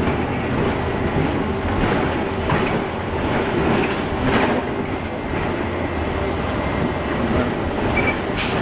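Steady engine and road noise of a moving city bus heard from inside the cabin, with a few short rattles and clacks, the sharpest near the end.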